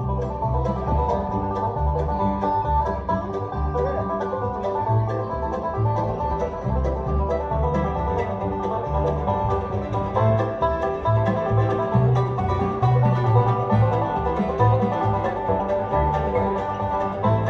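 Bluegrass band playing live: fast banjo picking with acoustic guitar, mandolin and upright bass, in an instrumental passage with no singing.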